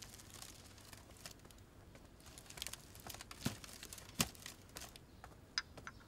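Faint handling sounds of small objects at a table: light crinkling and rustling with a few short sharp clicks, the loudest about halfway through.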